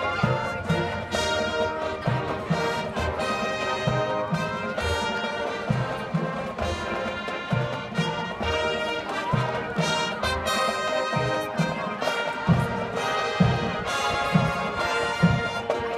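Marching band playing on the field: brass section with a steady drum beat underneath, and brass glides rising in pitch every second or two.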